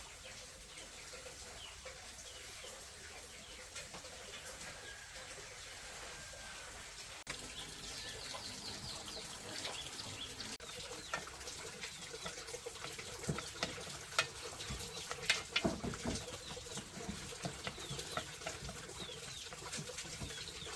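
Faint farmyard background of chickens and small birds chirping, with scattered clicks and knocks. The calls grow busier partway through.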